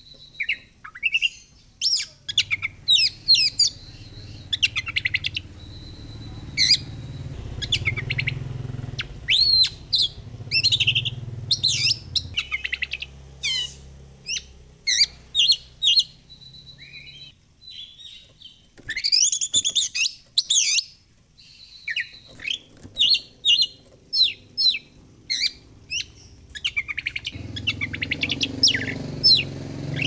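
Oriental magpie-robin (kacer) singing a long, varied song of quick whistled and chirping phrases, with a few held high whistles and a short pause past the middle. A low rumble sits in the background for stretches.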